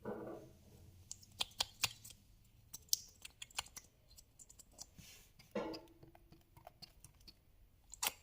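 Slime being worked by hand, giving irregular sharp clicks and small pops.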